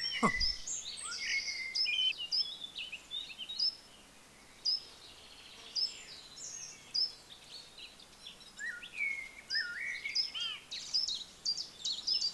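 Several songbirds singing at once, short whistled notes, chirps and trills overlapping throughout. A brief falling swoop sounds at the very start.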